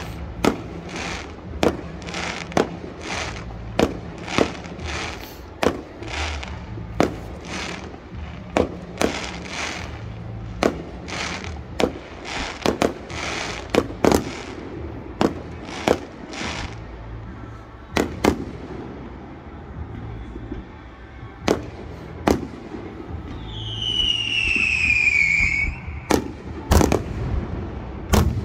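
Fireworks display: a rapid run of sharp aerial shell bursts, one to two a second, that thins out after the middle. A falling whistle comes about three-quarters of the way through, and a cluster of the loudest bangs near the end.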